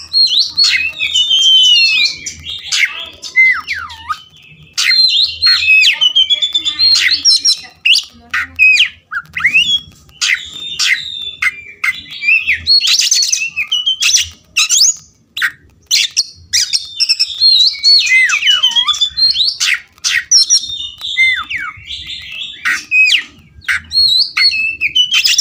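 Oriental magpie-robin (kacer) song: rapid, varied whistled phrases sliding up and down, mixed with harsh rasping notes and sharp clicks, delivered in bursts with short pauses between them.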